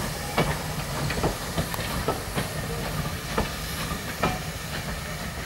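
Steam locomotive moving slowly with its train, steam hissing steadily from the cylinder drain cocks under a low rumble, with irregular sharp clicks and clanks from the wheels on the track and pointwork.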